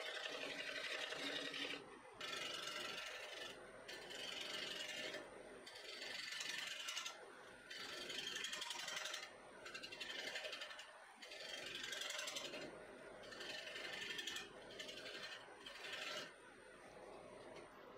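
Wood lathe spinning a maple bowl: a bowl gouge scraping the bottom for the first couple of seconds, then a sanding block pressed against the spinning bottom, its hiss coming and going in strokes every one to two seconds.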